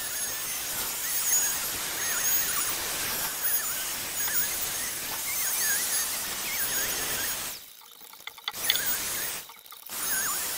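Handheld plunge router running and cutting maple: a steady high hiss with a wavering whine. It drops off about three quarters of the way through, then comes back in two short bursts.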